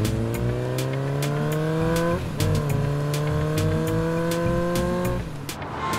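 Motorcycle engine accelerating through the gears: a long rising run, a short dip at a gear change about two seconds in, a second long rise, then the pitch drops off about five seconds in. A fast, even clicking beat runs over it.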